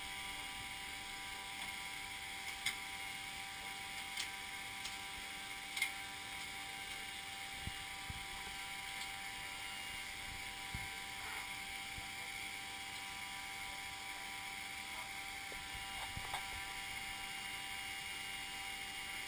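Steady electrical hum with several constant whining tones inside a B-29 Superfortress's crew compartment, engines not running, with a few light clicks and taps scattered through.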